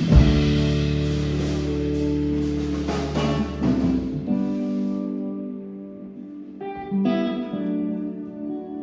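Music, an instrumental passage of a rock song. A full-band chord with a drum hit rings out and fades about four seconds in. After that a guitar picks quieter single notes on its own.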